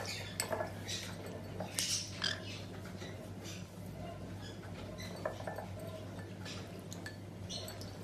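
A green-cheeked conure bathing in a small ceramic bowl of water: scattered small splashes and light clinks against the bowl, most of them in the first two seconds or so, over a low steady hum.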